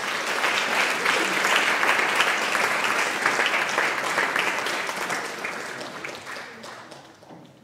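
Audience applauding at the end of a talk, fading away over the last two seconds or so.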